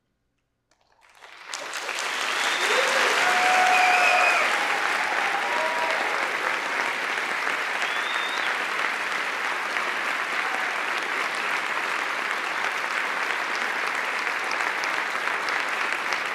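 Theatre audience applauding at the end of a choral piece: after a second of silence the clapping breaks out, swells with a few cheers over the first few seconds, then carries on steadily.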